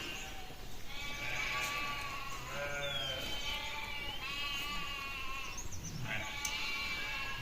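Sheep bleating, several calls of different pitch in a row and partly overlapping, with a small pause shortly before the end.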